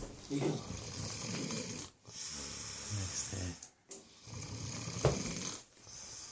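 A sleeper snoring in slow, even breaths: about three long snores, each roughly a second and a half, with brief pauses between. The snoring is laboured, and the owner takes it for a struggle to breathe.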